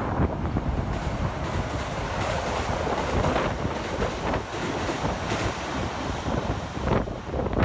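A train running past on the rails, a steady rolling noise that swells through the middle, with wind buffeting the microphone.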